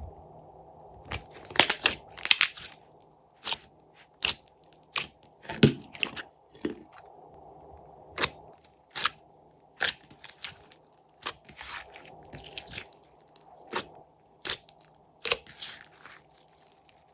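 Slime being squeezed and kneaded by hand, giving a string of sharp, sticky clicks and pops at an uneven pace, roughly one to two a second, some in quick pairs.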